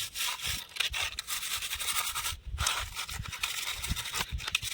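A wet, soapy brush scrubbing a toy car, in quick scratchy back-and-forth strokes, with a brief pause about halfway through.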